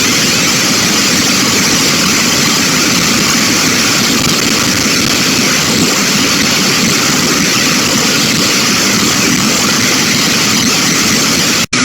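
Loud, harsh computer-generated noise from a GDI malware payload: a dense, steady hiss and rumble with no clear tune. It cuts out for an instant near the end as the next payload's sound starts.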